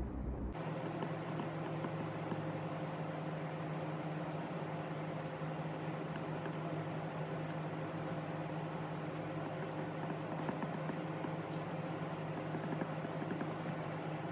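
A steady mechanical hum that starts abruptly about half a second in, with a constant low drone and a fainter higher tone over even background noise.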